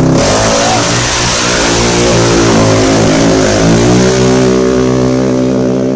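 Modified small-displacement drag motorcycle launching off the start line at full throttle, its engine running hard with the pitch wavering as it pulls away down the strip. The sound cuts off suddenly near the end.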